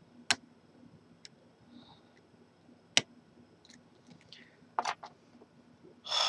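Lock picks working inside a large Corbin padlock: scattered sharp metallic clicks a second or two apart, the loudest about three seconds in and a quick cluster near five seconds. A short breathy rush starts right at the end.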